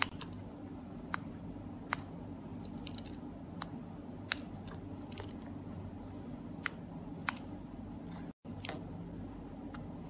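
Small plastic push buttons on two handheld remote key fobs clicking, pressed about a dozen times at irregular intervals while a code is copied from one remote to the cloning remote. A steady low hum runs underneath.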